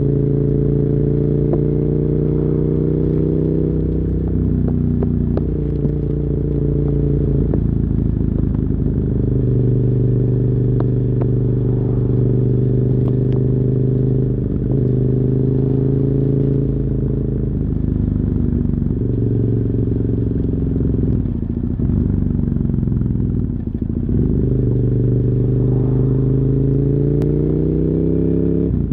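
KTM 990 Super Duke R's LC8 V-twin engine through dual Yoshimura carbon exhausts, heard while riding on the road. The engine note drops and climbs again several times as the revs change, and rises steadily near the end as the bike accelerates.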